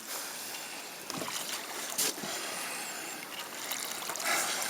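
Steady rushing noise of river water and wind around a fishing boat, with a few faint knocks.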